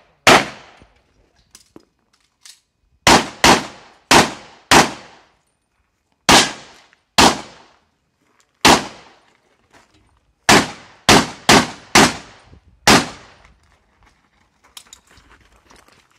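Pistol shots, about a dozen sharp cracks mostly in quick pairs (double taps) roughly half a second apart, each with a short ring-off. The firing stops a few seconds before the end, leaving faint scuffs and rattles.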